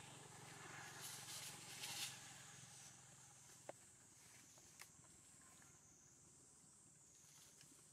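Near silence: faint outdoor background with a steady high hiss and a couple of soft clicks.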